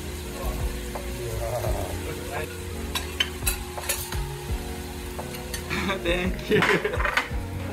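Hiroshima-style okonomiyaki sizzling on a steel teppan griddle, with metal spatulas scraping and clicking against the griddle as the pancakes are lifted onto plates. A louder clatter comes about six and a half seconds in, over a steady hum.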